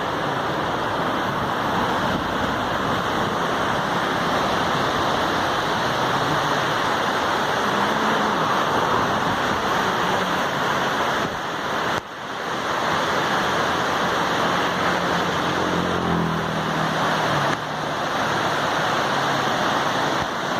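A swollen, flooded river rushing: a steady, dense roar of fast-moving water, with two sudden brief drops in level, about twelve seconds in and near the end.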